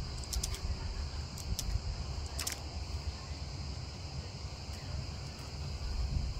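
Outdoor ambience: wind rumbling on the microphone under a steady, high insect drone, with a few faint clicks about half a second in and again about two and a half seconds in.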